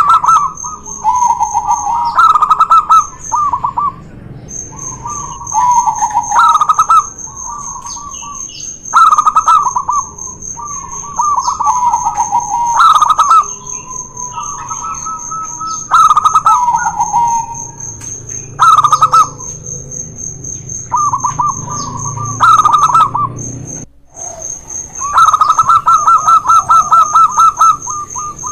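Zebra doves (perkutut) cooing: bouts of quick, rolling staccato coos repeated every two to three seconds, with a longer rapid run near the end.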